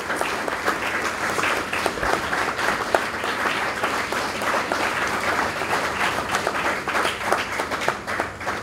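An audience applauding steadily, many hands clapping, thinning out near the end.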